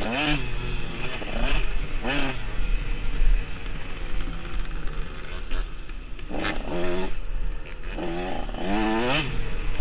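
Dirt bike engine revving up and down with the throttle, its pitch rising and falling several times, over low wind rumble on the microphone.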